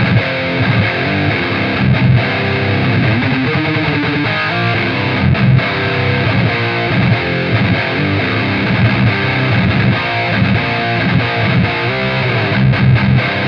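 Heavily distorted electric guitar: a Gibson Victory played through a MESA/Boogie 90s Dual Rectifier tube amp dialled for high-gain metal, heard through the miked Celestion speakers of a Rectifier cabinet. It plays a continuous heavy metal riff with thick low notes.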